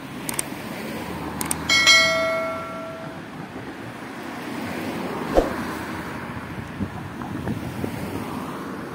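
Road traffic crossing a level crossing, with a sharp tyre knock over the rails about five seconds in. Early on come two mouse-click sound effects and then a single notification-bell ding that fades over about a second; these are a subscribe-button animation's sound effects, and the ding is the loudest sound.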